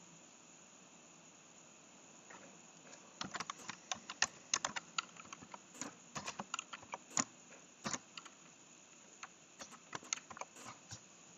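Typing on a computer keyboard: irregular quick key clicks starting about two seconds in, busiest in the middle and thinning out near the end, over faint steady hiss.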